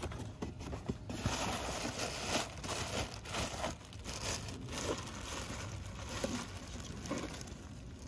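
Plastic bag crinkling and rustling as it is pulled open inside a cardboard box and a scoop is dug into the powdered fertilizer. It is loudest in the first half, then softer crinkles.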